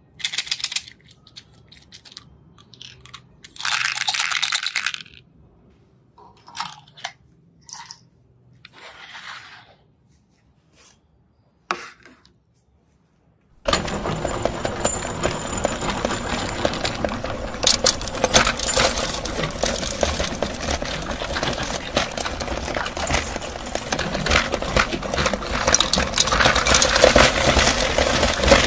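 Small hard candies rattling and clinking as they are tipped out of bottles onto a plate, in several short spells. About 14 seconds in a meat grinder starts running steadily, crunching the candies into powder with a dense crackling clatter.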